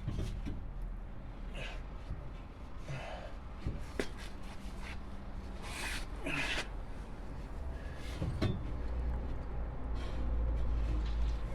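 Scattered metal clunks, clicks and short scrapes of a part being handled and wiggled into place under a truck frame, over a steady low hum.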